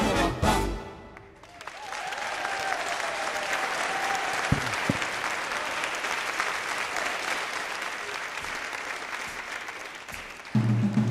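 A swing big band ends a number, and then the audience applauds for about eight seconds. About ten and a half seconds in, the band with saxophones and trombones starts the next tune.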